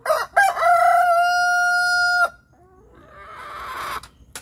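A rooster crowing once, with a broken, stuttering start and then a long held note that cuts off sharply after about two seconds. A fainter noisy sound swells and stops a second or so later.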